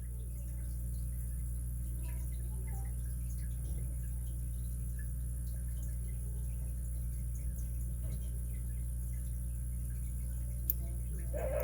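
Faint, scattered small metallic ticks of a lock pick working the pins of a Master 930/950 padlock's 6-pin core under tension, with one sharper click near the end, over a steady low hum. Just before the end a dog starts whining.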